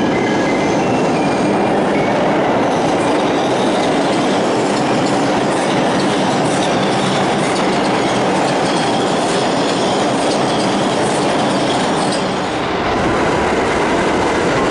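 New York City subway train running through an underground station on a track across the platform: a loud, steady rumble and rattle of wheels on rails that echoes in the station.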